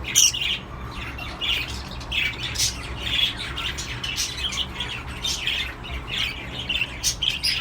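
Cockatiels giving short, harsh squawking calls over and over, about two a second.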